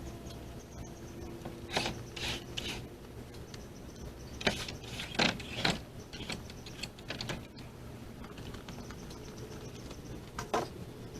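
A series of knocks and clunks as a heavy oak 4x6 beam is handled and set onto sawhorses, in two clusters and once more near the end, over a faint steady hum.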